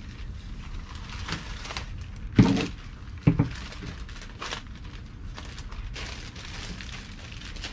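Scissors cutting through a thick plastic contractor bag, with the plastic crinkling in short bursts. Two louder thumps about a second apart, a little past two and three seconds in.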